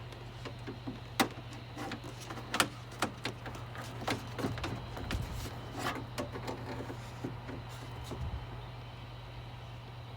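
Sharp metal clicks and knocks of a socket wrench and bolts working inside a truck door panel, loudest twice in the first few seconds, then a scatter of lighter clatter, over a steady low hum.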